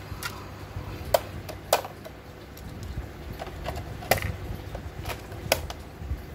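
Plastic clicks and clacks of a cassette being handled and loaded into the deck of a Playskool Mr. Mike toy cassette recorder, with the cassette door pressed shut. There are a handful of sharp clicks, a few seconds apart.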